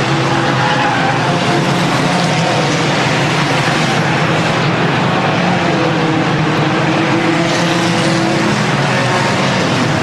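A pack of stock cars racing around an oval track, many engines running at once in a loud, steady mix.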